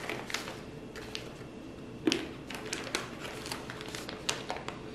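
Crinkling and clicking of a foil-lined snack pouch of dried fruit and nuts being handled, with soft crunches of nuts being chewed; one louder click about two seconds in.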